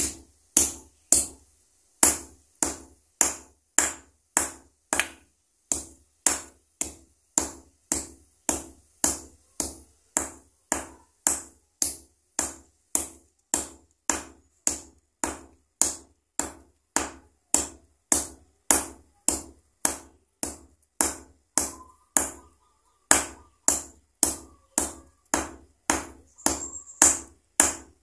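Hammer pounding a dried cattle leg tendon on a steel block, about two blows a second, each strike ringing off the steel, with one short pause past two-thirds of the way. The pounding is breaking the tendon down into sinew fibres for bow backing.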